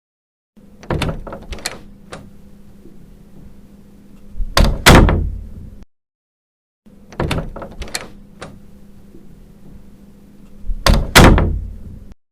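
A door opened and shut: a few sharp clicks of the handle and latch, then a loud thud as it closes, with a faint steady hum between. The same sequence plays twice.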